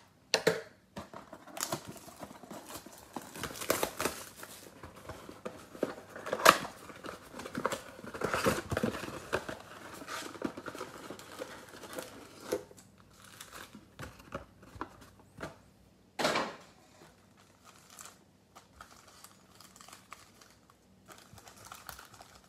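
Plastic shrink wrap crinkling and tearing as it is stripped off a cardboard trading-card box, then the box flap opened and foil card packs handled. The crackling is busiest in the first half, with one sharper rip or scrape about two-thirds through.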